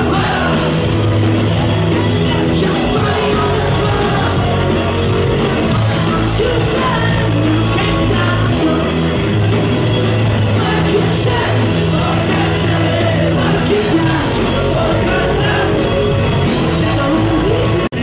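Live rock band playing loud electric guitars and drums with a sung lead vocal, heard from among a concert crowd in a large hall. The sound drops out for an instant near the end.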